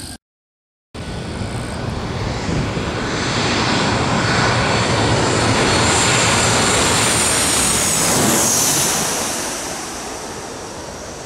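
Twin-engine jet airliner on final approach passing low overhead: the jet engines' rumble and whine swell over several seconds, a high whine drops in pitch as the plane goes over, and the sound then fades.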